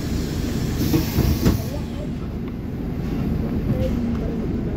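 Cabin noise of a Scania city bus under way: a steady low rumble of engine and road with rattling, and a few knocks and a short hiss about a second in.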